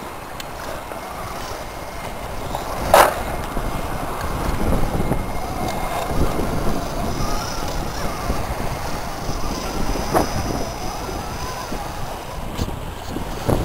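Scale RC rock crawler's electric motor and gears whining, rising and falling in pitch as it crawls over rock, with a sharp knock about three seconds in and a smaller one near ten seconds. Wind rumbles on the microphone underneath.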